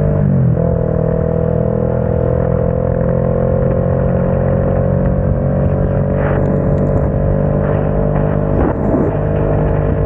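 Motorcycle engine accelerating. About half a second in, an upshift from second to third drops the pitch, and then the note climbs slowly and steadily as speed builds.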